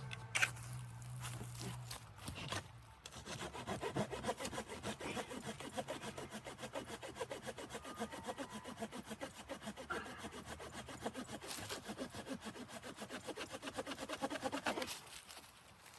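Hand saw cutting through wood in quick, even back-and-forth strokes, starting about three seconds in and stopping shortly before the end, after a few scattered knocks.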